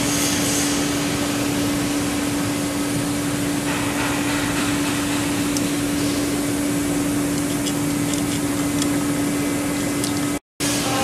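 Steady machinery hum: a constant low tone with a hiss over it, and a few light ticks in the middle as the coolant collector housing is handled. The sound cuts out for a split second near the end.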